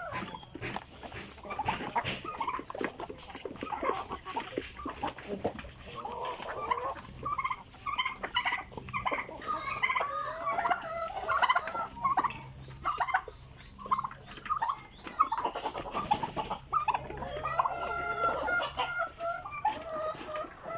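Free-range chickens clucking and calling in irregular, overlapping bursts.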